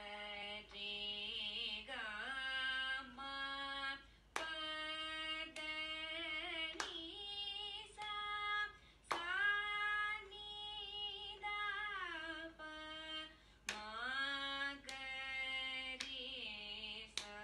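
A woman singing solo, a slow melody in short phrases of long held notes with sliding pitch bends.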